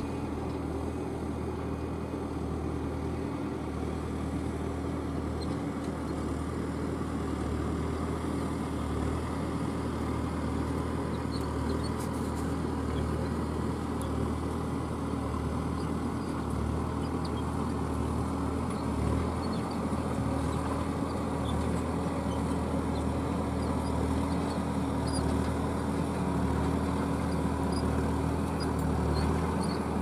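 Fendt 415 Vario tractor's six-cylinder diesel engine running steadily under load, pulling a Kverneland ED85 four-furrow mounted plough through the soil. The sound grows gradually louder as the tractor draws nearer.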